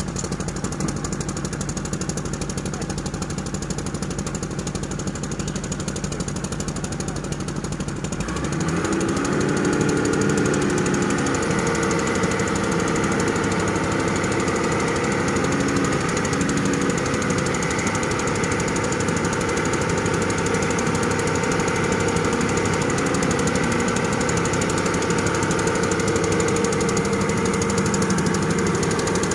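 Excavator's diesel engine running at a steady speed, then growing louder about eight seconds in as it comes under load working the hydraulics to dig and load sand, staying loud to the end.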